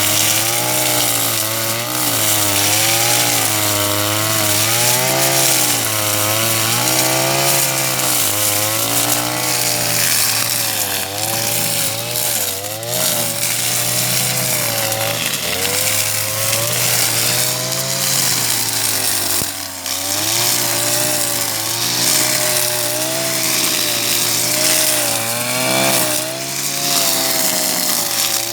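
Husqvarna 143R-II two-stroke brushcutter running hard while cutting grass, its engine pitch rising and falling continually as the load on the cutting head changes.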